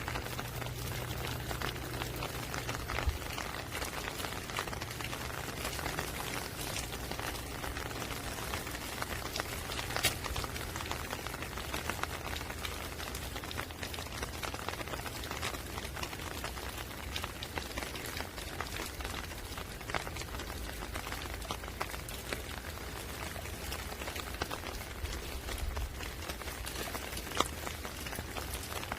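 Steady rain falling, with scattered close drops ticking sharply through the patter.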